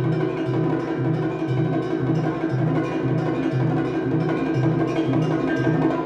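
Live percussion duo playing: a steady low drum beat about twice a second under ringing pitched percussion.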